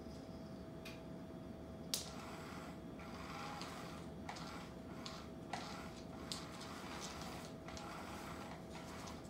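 Claws of a walking cat ticking now and then on a hardwood floor: a few light, irregular clicks, the sharpest about two seconds in, over a faint steady hum.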